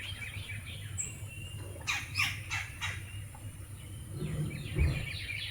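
Small woodpecker calling in a territorial dispute: a quick run of about five sharp falling notes a couple of seconds in, over steady high chirping. A low bump comes near the end.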